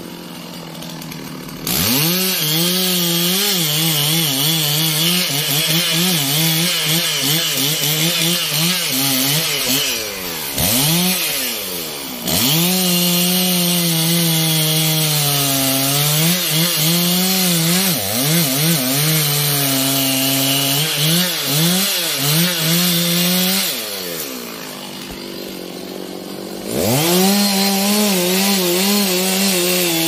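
Large two-stroke chainsaw cutting into trembesi (rain tree) wood at full throttle, its engine note wavering as the chain loads up in the cut. It revs up about two seconds in, and the throttle is let off twice, about ten and twenty-four seconds in, dropping to a lower idle before revving back up.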